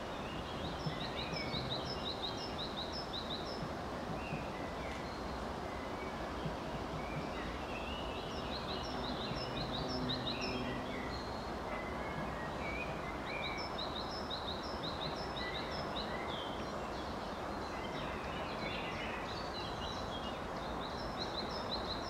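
A songbird singing short, rapidly repeated high phrases in four bouts a few seconds apart, over a steady low outdoor noise.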